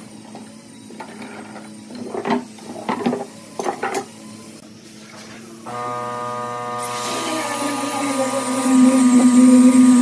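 Pipe clamps being loosened and pulled off a glued-up wooden panel: a run of clicks and knocks. About seven seconds in, an angle grinder fitted with a sanding pad starts up and sands the panel, a steady motor whine with a hiss that grows louder.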